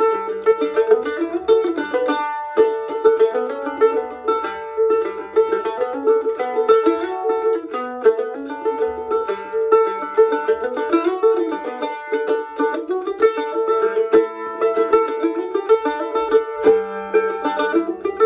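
Instrumental music with quickly picked plucked-string notes over a steady tune.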